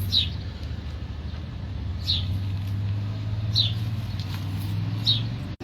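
A small bird chirping a short, high, falling note about every second and a half, four times, over a steady low hum.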